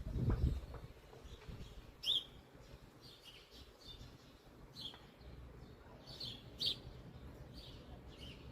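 Small birds chirping in short, scattered calls, a few notes every second or so, over a steady low background. A brief low rumble at the very start.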